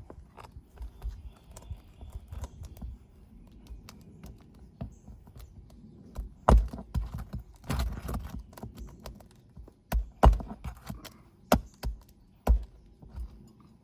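Irregular knocks, taps and a brief scrape from hands and tools working on roof shingles during a shingle repair, with the loudest sharp knocks about six and a half, ten and twelve seconds in.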